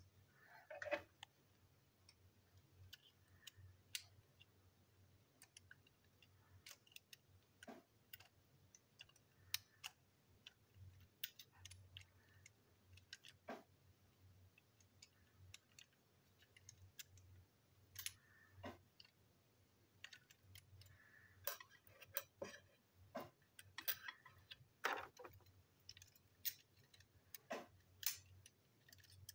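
Faint, scattered clicks and taps of small plastic toy-train parts and tiny metal screws being handled on a tabletop, a few sharper than the rest, over a low steady hum.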